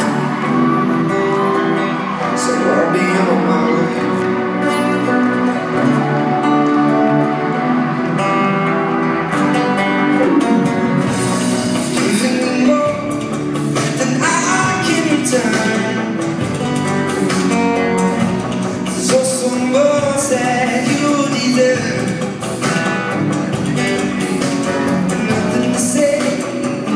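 Male singer performing live with a strummed acoustic guitar, heard from the audience in a large concert hall.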